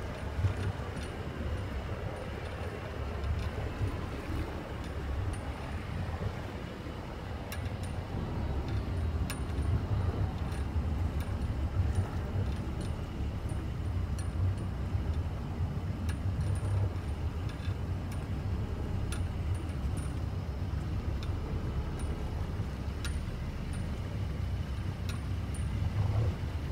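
Wind buffeting the microphone with a steady low rumble, over choppy water slapping against a small sailboat's hull. Faint high clicks and clinks come through now and then.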